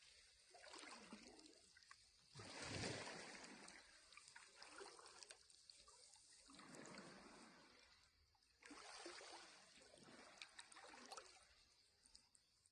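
Small sea waves washing onto the shore, faint, coming in surges that swell and fade every few seconds, the loudest about three seconds in.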